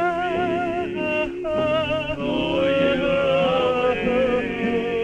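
Male voice singing a slow cowboy ballad over backing music, drawing out long notes with vibrato, with a short pause for breath about a second and a half in.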